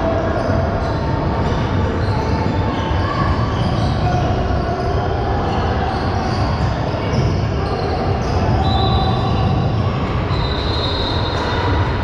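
Basketball game in a gym: the ball bouncing over a steady crowd hubbub, with high sneaker squeaks on the court in the last third.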